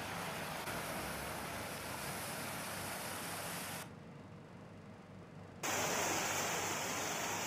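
Floodwater rushing, a steady noisy hiss. It dips quieter for about two seconds near the middle, then comes back louder and hissier as fast water flows down a flooded street.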